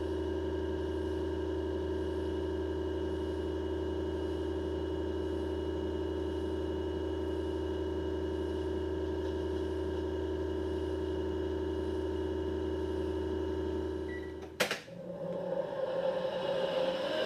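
Panasonic heat-pump drum washer-dryer running in its drying cycle: a steady hum with several constant tones, which stops with a sharp click about fourteen seconds in, after which a rough whirring starts and rises in pitch and level as something spins up. The drying noise comes from the blower fan motor, whose bearing is damaged and grinding.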